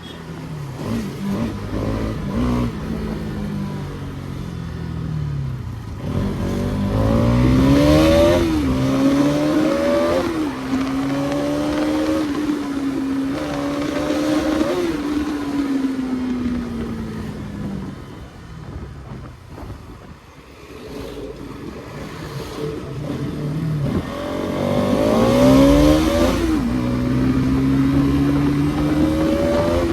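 Bajaj Pulsar NS200 BS6's single-cylinder engine under way, revving up through the gears with a brief dip at each shift. It holds speed for a while, then eases off and drops to a lull around the middle. It revs up again through a shift near the end.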